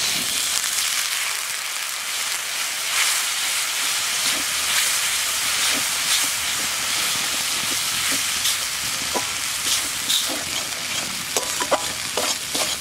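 Water poured into hot oil and spice paste in a metal kadai, sizzling hard: the hiss starts suddenly as the water goes in and stays steady while a spatula stirs the paste. A few spatula clicks against the pan come in the last few seconds.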